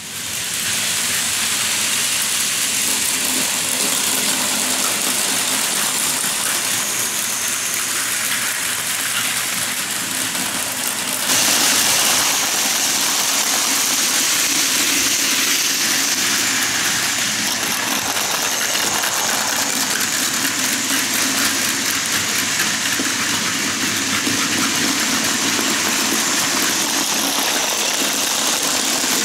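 Plarail Advance battery-powered toy trains running on plastic track: a steady whirring of small gear motors and wheels. It gets louder about a third of the way in.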